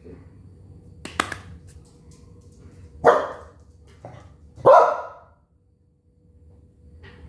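Small Dandie Dinmont terrier barking: two loud barks about a second and a half apart, after a short, sharp sound about a second in.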